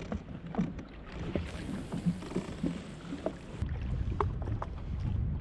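Sea water lapping and slapping against the hull of a drifting jet ski, with scattered small clicks and knocks. A low rumble grows louder about two thirds of the way in.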